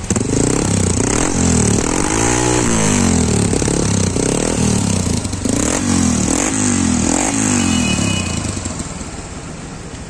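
Hero Honda Impulse's single-cylinder four-stroke engine revved through a newly fitted MW performance exhaust with its dB killer still in place: the throttle is blipped about six times, pitch rising and falling, before it settles back toward idle near the end.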